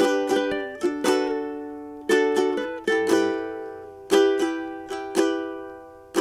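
Ukulele strumming chords in a steady down-and-up pattern, clusters of quick strokes about once a second that ring and fade, with a chord change partway through.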